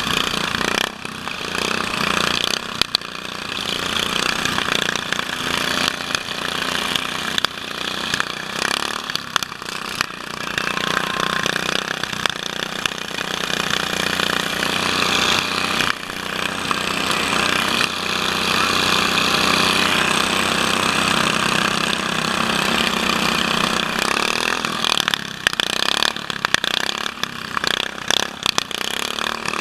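Racing riding lawn mower's small engine running hard, heard close up, with other mowers' engines around it. The sound grows choppy near the end, with scattered knocks and bumps.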